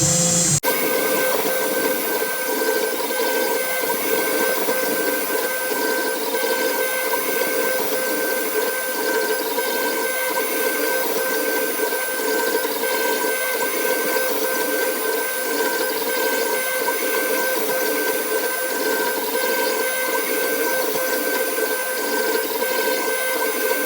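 CNC router spindle running steadily as the bit carves wood: a steady whine of several tones over hiss, with a faint regular pulse about every half second. The sound changes abruptly just after it begins.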